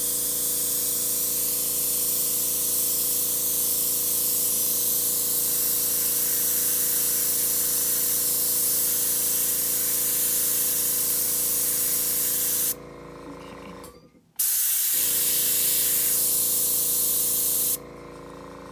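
Airbrush blowing plain air in a steady hiss over a drop of alcohol ink to dry it, with the air compressor's motor humming underneath. The hiss stops about 13 seconds in, the hum cuts out for a moment, then both start again for about three seconds before the air stops once more.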